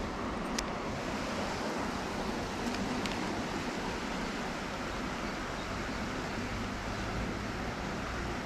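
Steady rush of a fast-flowing stream, with a few faint clicks in the first few seconds.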